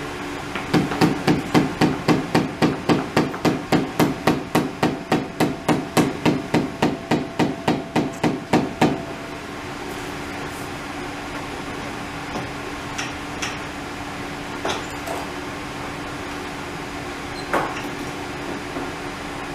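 March riflescope being struck repeatedly on an iron stand in a shock-resistance test: a fast run of about thirty sharp knocks, about four a second, stopping about nine seconds in. A few lighter single knocks follow over a steady low hum.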